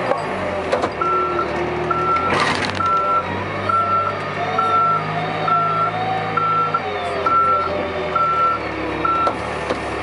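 Case 580 backhoe loader's diesel engine running while its reverse alarm beeps steadily, ten beeps at about one a second, as the machine backs up. A loud clank comes about two and a half seconds in.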